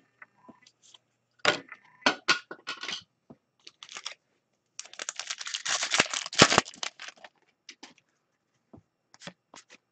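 Hockey card pack wrapper being torn open and crinkled for a couple of seconds in the middle, with light clicks and taps of cards being handled before and after.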